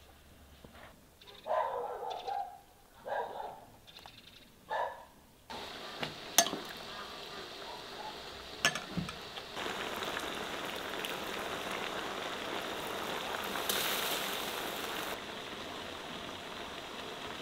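A dog barks four times. Then a metal spoon clicks twice against a ceramic bowl while saffron is stirred, followed by a steady hiss that is loudest for about five seconds and softer near the end, as melted butter is poured through a strainer onto rice.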